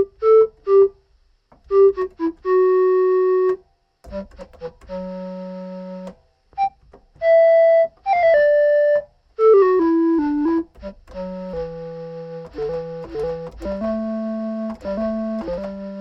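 Technics SX-K200 home keyboard (1982) being played: short and held notes on a solo voice, with a few falling runs of notes around the middle, then a melody over held chords and a low bass note in the last few seconds.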